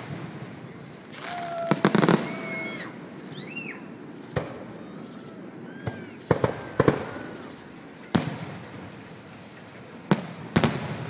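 Aerial fireworks bursting in a series of sharp bangs, some in quick pairs, with a few shrill whistles rising and falling in pitch between them.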